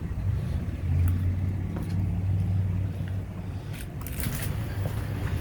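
Motor vehicle engine running nearby, a low rumble that is loudest about a second in and eases off after about three and a half seconds.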